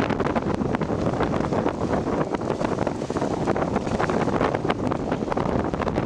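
High wind buffeting the microphone in loud, gusty rushes, over the wash of choppy waves.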